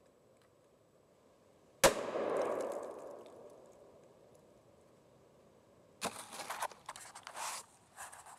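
A single sharp bang as a 7.62x39 high-explosive incendiary rifle round strikes the steel-plated target, with a ringing clang that dies away over about a second and a half. A few seconds later, a flurry of rustling and knocking as the camera is handled.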